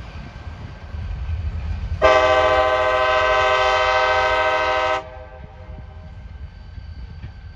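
Train horn sounding one steady blast of about three seconds, several tones together, over a low rumble.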